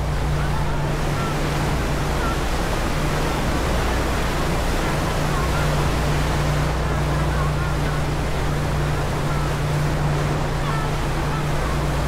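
Passenger ferry under way: its engines hum steadily in the low register beneath the constant rushing of the churned-up wake behind the stern.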